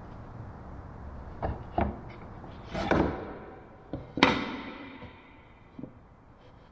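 Workshop handling sounds: several knocks and thuds as objects are picked up and set down, the loudest about four seconds in with a short ringing tail, over a low steady hum.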